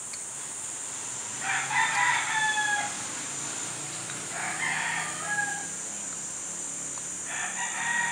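Rooster crowing three times, each crow about a second long and a few seconds apart; the first, about a second and a half in, is the loudest.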